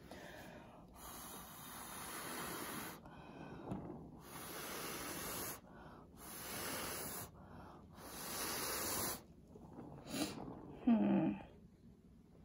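A person blowing hard on wet acrylic pour paint, several long breathy blows of a second or two each, to push the paint and pull up cells. A short voiced sound comes near the end.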